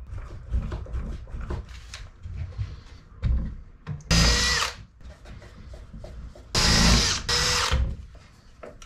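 Makita cordless drill running in short bursts into wood: once about four seconds in, then twice in quick succession near seven seconds, with quieter handling knocks and clatter between.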